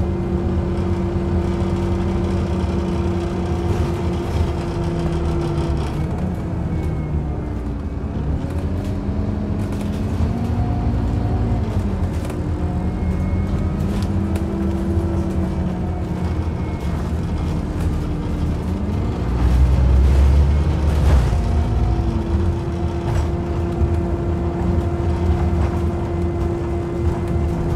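Inside a Scania OmniCity single-deck bus on the move: the engine and driveline run with a steady hum, and the engine note rises and falls several times in the middle. A louder low rumble comes about twenty seconds in.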